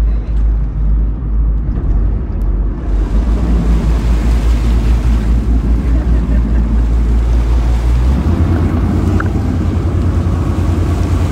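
Boat engine running with a steady low drone, its pitch stepping up about eight seconds in, under a wash of wind and water noise.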